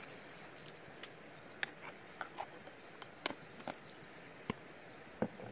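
A string of small, sharp clicks and taps from hands handling a plastic marinade container, over a faint, steady, high insect chirping.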